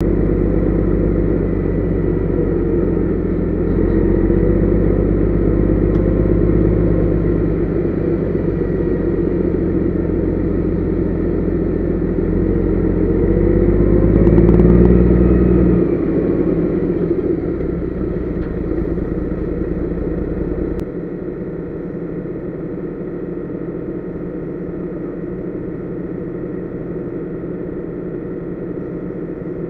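Heavy low-loader truck's diesel engine heard inside the cab, running steadily under way. About halfway through it revs up briefly and drops back. Some two-thirds of the way in it settles to a lower, quieter running.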